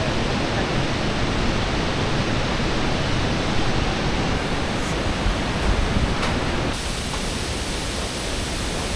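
Steady rushing roar of the Iguazu Falls' water plunging down, an even dense noise that shifts slightly about seven seconds in.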